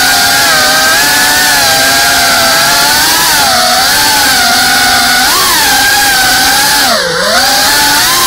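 FPV racing quadcopter's motors and propellers buzzing loudly, heard close up from the onboard camera, the whine's pitch wavering up and down with the throttle. About seven seconds in the pitch drops sharply as the throttle is cut, then climbs straight back.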